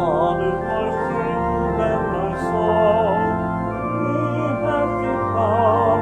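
Church organ playing a hymn, with voices singing along.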